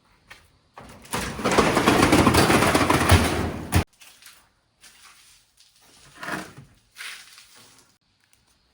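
Glass marbles rolling and rattling down a marble-run track: a loud rolling rumble with rapid clicks for about three seconds that cuts off suddenly, then fainter, shorter runs of rolling a few seconds later.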